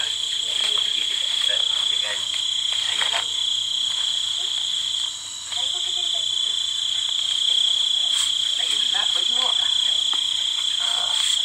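Steady, shrill chorus of night insects such as crickets: one unbroken high-pitched trill that drops out for a moment about five seconds in. Faint voices murmur underneath.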